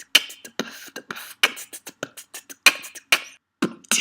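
A quick percussive beat of sharp clicks and snare-like hits, roughly five a second, with a few deeper kick-like thumps, in the manner of beatboxing.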